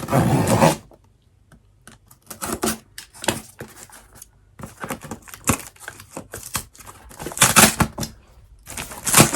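A parcel being cut open with a knife and its packaging torn and handled: irregular scraping, crackling and clicking, with louder bursts of ripping in the first second and again near the end.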